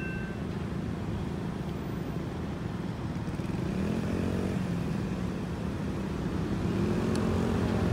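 Railroad crossing bell stops ringing just after the start. Then road vehicles start off across the tracks, their engines rising in pitch as they accelerate, over a steady low rumble that grows louder near the end.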